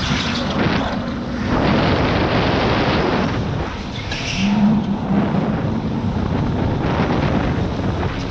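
Electric go-kart driven at speed through corners, its onboard microphone filled with rushing wind and tyre noise. A steady low hum from the electric drive comes in about halfway through, with a brief higher squeal just before it.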